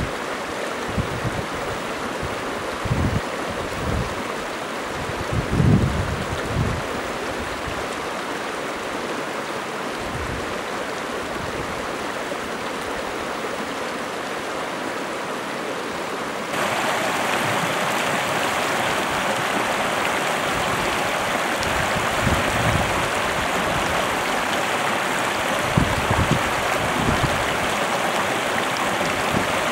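Stream water running over a stony riverbed: a steady rushing hiss that steps louder about halfway through, with a few brief low rumbles.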